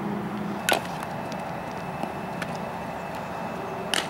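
Two sharp smacks of a softball, about a second in and again near the end, with a few fainter ticks between, over a steady background hum.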